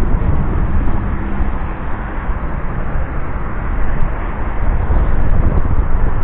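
Continuous outdoor background noise dominated by a heavy, uneven low rumble, with no distinct events standing out.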